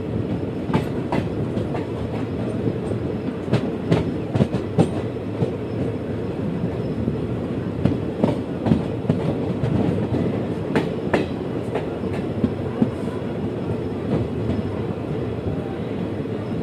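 Passenger express coach running at speed, a steady rumble of wheels on rail broken by clusters of sharp clicks every few seconds as the wheels cross rail joints.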